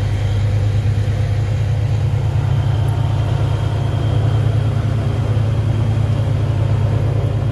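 Volvo NH 380 truck's diesel engine running steadily at low revs, a constant low drone heard from inside the cab.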